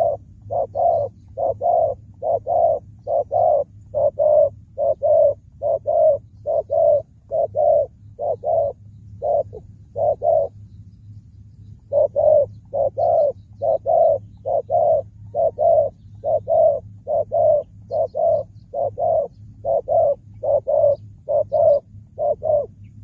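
Spotted dove bow-cooing, the courtship and challenge call of a decoy dove: a long run of short, low coos, about two to three a second. It pauses for about a second and a half some ten seconds in, then starts again and stops just before the end.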